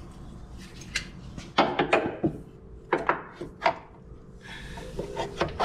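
Metal parts knocking and clanking as a new engine motor mount is handled and worked into its seat under the car: several sharp knocks spread out, with a short metallic ring near the end.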